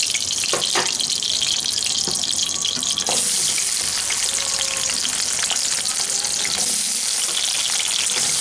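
Potato chunks sizzling and crackling as they deep-fry in hot mustard oil in a metal kadai, with a few short clicks as more pieces go into the oil. The sizzle grows louder about three seconds in.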